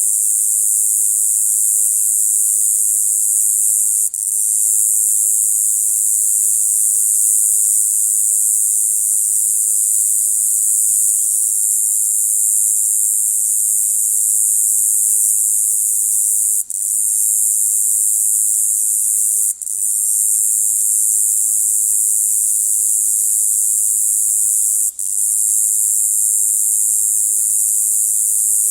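A single cicada calling with a continuous, high-pitched ratcheting buzz, steady and unbroken except for four brief drop-outs.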